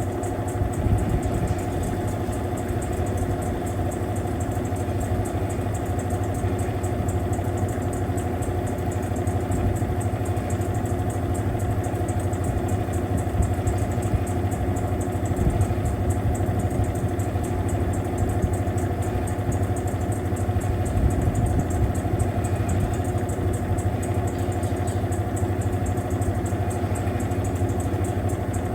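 Mueller Popmatic 8 kg washing machine running through its cycle, a steady motor hum with a low drone and a higher whine that holds constant throughout.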